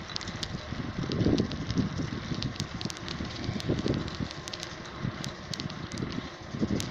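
Outdoor wind and handling noise on a handheld phone's microphone: a steady rush with many scattered crackles and irregular low bumps.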